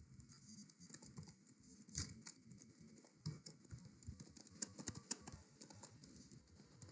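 Faint typing on a computer keyboard: irregular clicks of the keys, busiest about two seconds in and again in the second half.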